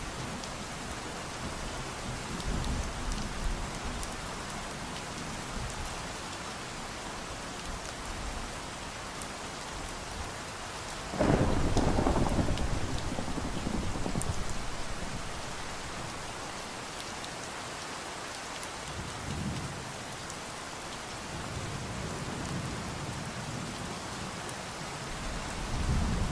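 Steady rain falling, with thunder: a loud rumble starts suddenly about halfway through and dies away over several seconds, and fainter low rumbles come later.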